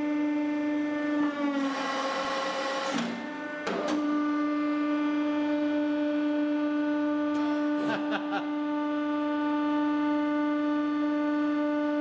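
Hydraulic press pump motor running with a steady hum. About a second in, its pitch sags and a hiss rises as it works against the load of squeezing a modelling-clay figure, then it settles back to a steady hum. There are a few sharp clicks, around four seconds in and again about eight seconds in.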